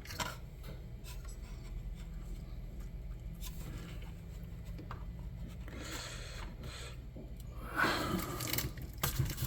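Light scraping and rubbing of suspension parts being handled while hinge pins are fitted into the A-arms, with a louder scrape about eight seconds in and a few sharp clicks near the end, over a steady low hum.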